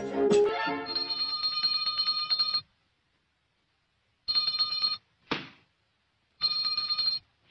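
A small handbell rung rapidly in bursts: one ring of about two seconds, then two shorter ones. There is a short, sharp hit after the second burst. Background music stops just as the ringing starts.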